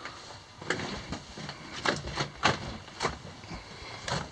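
Irregular footsteps scuffing and knocking over loose rock and debris on a mine-tunnel floor, about six sharp steps and knocks at uneven spacing.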